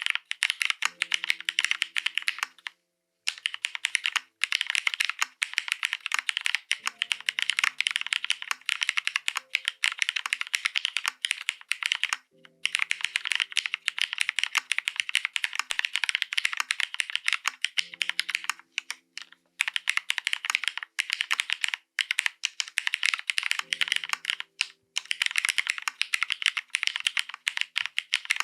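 Fast, continuous typing on a Bina 103 mechanical keyboard with Cherry Hyperglide Black linear switches, an aluminium half plate, Cherry G81-3081 keycaps and no case foam. It makes a dense run of keystroke clacks, broken by a few brief pauses.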